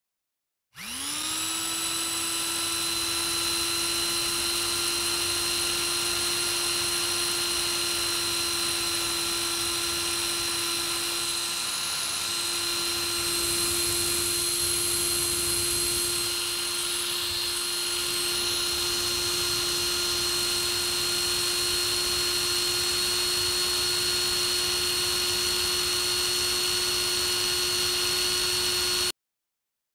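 A high-speed power tool spins up about a second in, then runs at a steady, high-pitched whine made of several fixed tones over a hiss, and cuts off abruptly near the end.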